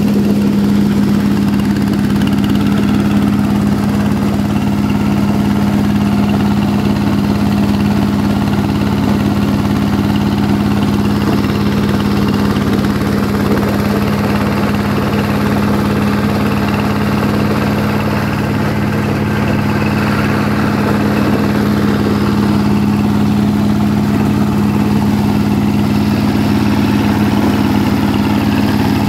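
SJ12 motorised corn sheller running steadily: an even, loud machine drone with a strong steady hum that does not change.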